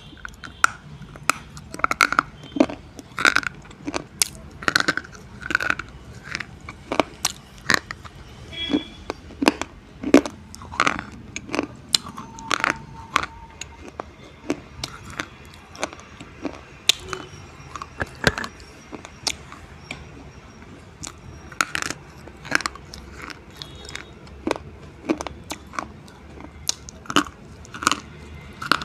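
Meenakshi-brand slate pencils being bitten and chewed close to a microphone: sharp, crisp snaps and crunches, irregular, about one or two a second.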